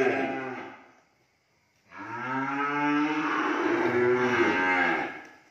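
Cattle mooing: the tail of one moo fades out in the first second. A second long moo, rising then falling in pitch, starts about two seconds in and lasts over three seconds.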